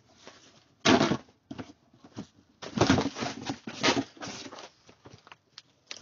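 Cardboard box being handled and pulled apart, with paper or packing rustling and crinkling: a loud burst about a second in, then a longer stretch of rustling and scraping in the middle, with small clicks and taps between.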